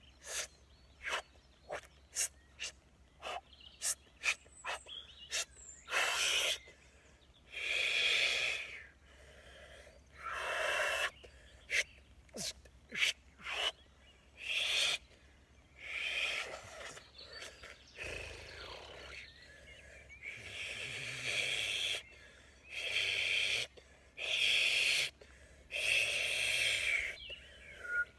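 A man voicing 'light language': a quick run of sharp clicks over the first few seconds, then a series of long, breathy, drawn-out vocal sounds with short pauses between them.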